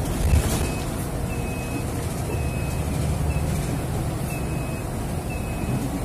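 Yutong city bus on the move, heard inside the cabin: a steady low rumble of running gear and road. Over it, a short high electronic beep repeats about once a second.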